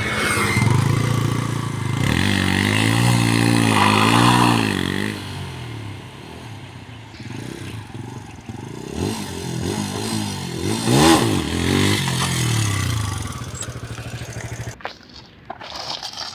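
Motorcycle engine running under way, revving up and easing off several times, its pitch rising and falling with each throttle change.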